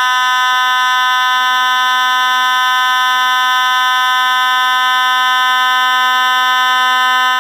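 Federal Signal 450 vibrating fire alarm horn sounding continuously: one steady, loud, harsh buzzing tone that cuts off abruptly at the very end.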